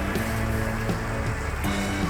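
Background music: held notes changing about every half second over a steady bass.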